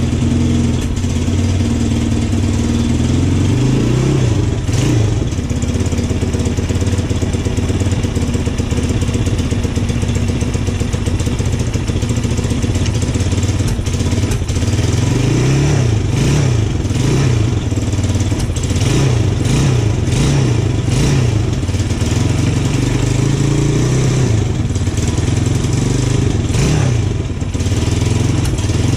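Vitacci Pentora 250 ATV's single-cylinder four-stroke engine warming up: it idles steadily at first and is then revved up and down again and again with the throttle, most often in the second half.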